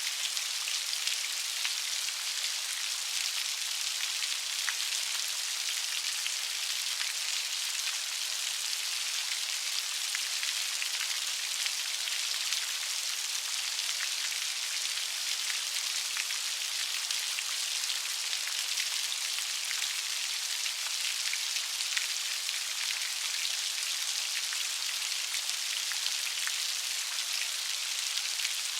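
Light rain falling steadily: an even high hiss dotted with small drop ticks.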